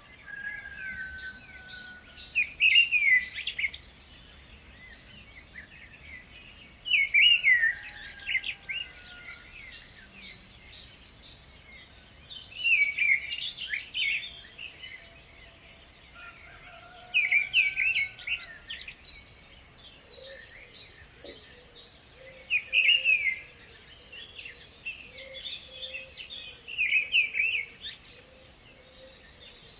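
Songbirds singing: one loud song phrase comes back about every four to five seconds, over steady high chirping and soft whistles from other birds.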